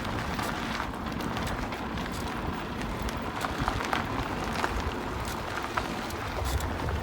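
Lada Vesta SW Cross on the move: a steady rumble of road noise with a scattered handful of short clicks and knocks from the front suspension, where the owner has a squeak and an occasional knock over hard bumps.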